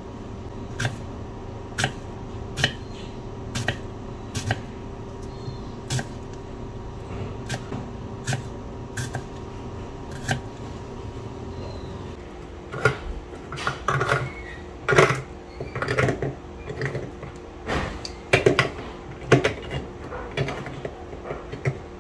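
Kitchen knife slicing through an onion onto a wooden cutting board, a sharp tap of the blade on the wood about once a second. About twelve seconds in, the taps give way to a faster, uneven run of louder clicks and knocks.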